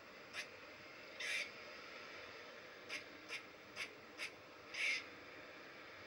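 A tassel-eared squirrel scratching and digging in pine-needle litter: a string of short, scratchy rustles, about seven in six seconds, two of them a little longer, over a faint steady hiss.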